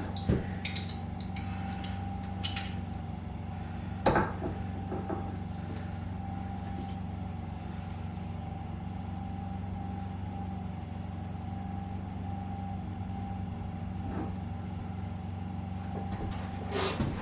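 A steady engine-like hum runs throughout, with a sharp knock about four seconds in and a few light clicks near the start and end.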